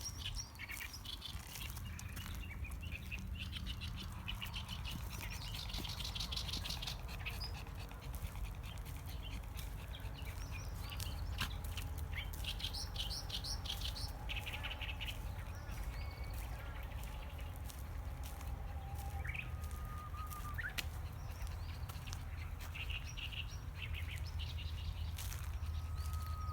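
Several wild birds singing and chirping, with bursts of rapid high trills and clear whistled notes that end in a quick upward flick, among them a Japanese bush warbler (uguisu). A steady low rumble runs underneath.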